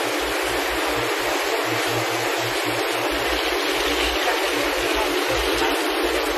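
Steady rush of water circulating and bubbling through aerated live-seafood tanks, with irregular low rumbles underneath.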